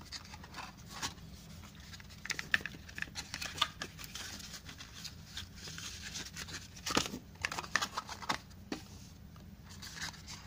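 Hands handling a cardboard watch box and its paper and card packaging: scattered rustles, taps and light knocks, the loudest about seven seconds in.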